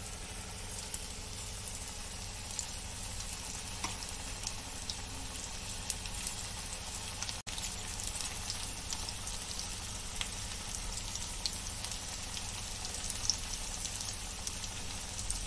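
Besan-and-onion pakoras deep-frying in hot oil in a kadhai: a steady sizzle with scattered small crackles, broken once for a moment about halfway.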